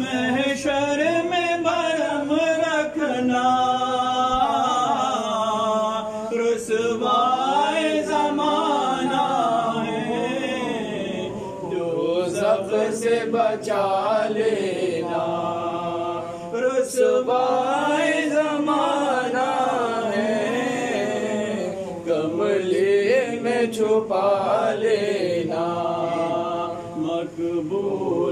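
A man chanting a prayer of supplication into a microphone in a melodic voice, with long drawn-out notes that rise and fall.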